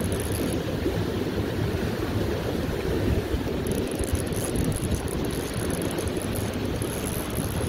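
River rapids rushing over rocks close by, a steady full-bodied noise of whitewater.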